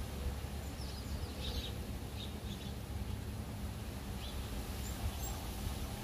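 Hummingbirds chirping: clusters of short, high chirps in the first half, and a few fainter, higher ticks about five seconds in, over a steady low rumble.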